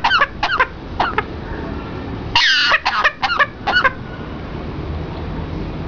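Parrot coughing: a run of short cough-like calls in the first second, one longer wavering call about two and a half seconds in, then a few more short coughs that stop about four seconds in.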